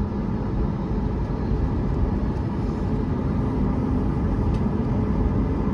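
Steady low rumble and hum of a Boeing 737 MAX 8 airliner, heard from inside its cabin after landing.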